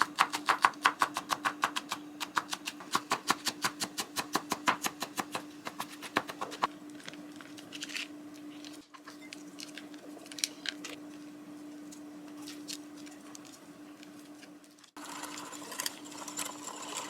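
A knife chopping quickly on a cutting board, an even run of about four to five knocks a second, slowing to scattered single knocks after about seven seconds. A steady low hum runs underneath.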